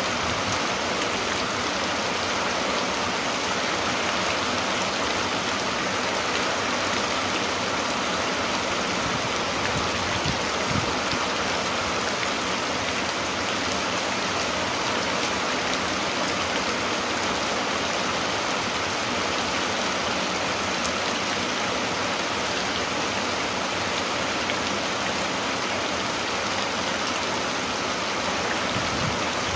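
Steady rain falling, an even, unbroken hiss with no thunder or other events.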